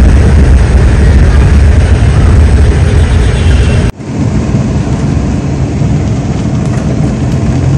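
Loud, dense low rumbling noise that cuts off abruptly about four seconds in, giving way to a car running, heard from inside its cabin, with rain on the windshield.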